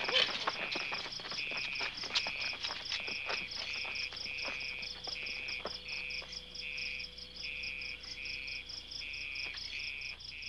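Insects chirping steadily: a high, even chirp repeating about four times a second over a lower trill that pulses a little over once a second. Scattered light knocks and scuffs come in the first few seconds.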